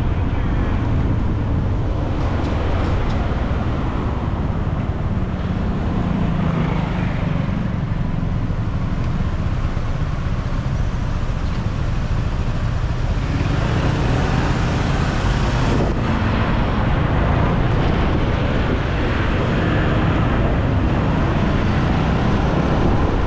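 Steady ride noise from the back of a moving motorbike: the motorbike's engine, wind rushing over the microphone and surrounding car traffic, with a louder hiss rising for a couple of seconds about fourteen seconds in.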